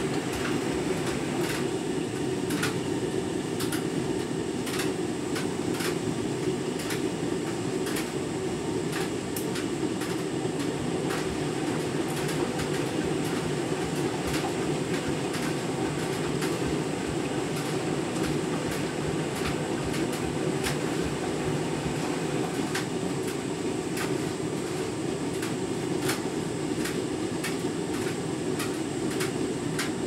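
Candy Grand'O Vita 7 kg front-loading washing machine tumbling a half load through rinse water: a steady churning rumble with frequent light irregular clicks.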